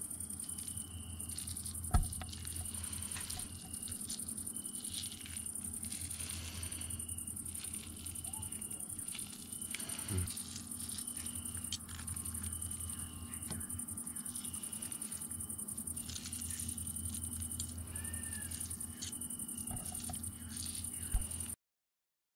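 Crickets chirping steadily at night, with a short higher note repeating about every second and a half over a low steady hum. Cutlery clinks on a plate a few times, and the sound cuts off suddenly near the end.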